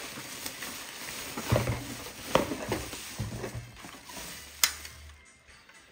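Bubble wrap and plastic packaging crinkling and crackling as it is handled and pulled off a model car, with a sharp click about two-thirds of the way through. It quiets down near the end.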